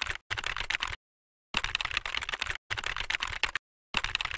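Keyboard typing sound effect: fast clicking of keys in runs of about a second, broken twice by sudden dead-silent gaps, laid under on-screen captions being typed out letter by letter.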